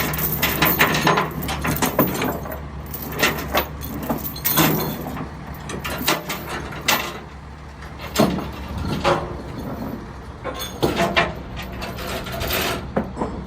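Steady hum of an idling vehicle engine under irregular sharp metal clanks and jingling rattles from tie-down chains and binder hardware.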